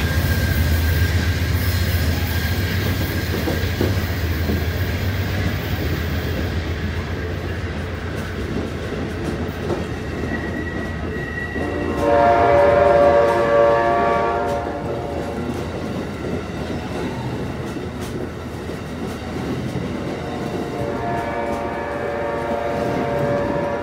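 Amtrak Northeast Regional's Amfleet passenger cars rolling past steadily, with a clickety-clack of wheels over the rails. The P42DC locomotive's horn sounds from up the line, a loud blast about halfway through and a fainter one near the end.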